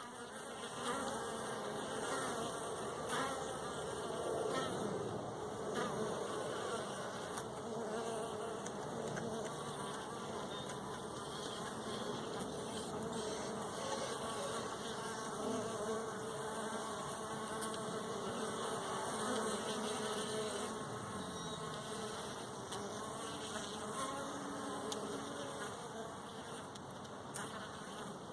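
A mass of honey bees buzzing together, a steady dense hum of many wavering pitches. The beekeeper believes the bees to be Carniolans.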